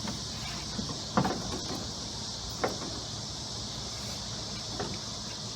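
Three or four light knocks and clicks from hands and tools working on a lawn tractor's steering, over a steady high hiss.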